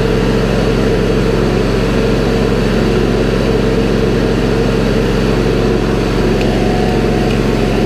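Ferris IS 700Z zero-turn mower's engine running steadily at an even speed.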